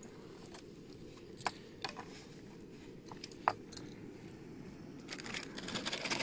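A few sharp clinks and clicks of camp cookware and utensils being handled, over a faint steady low rumble. Rustling builds near the end.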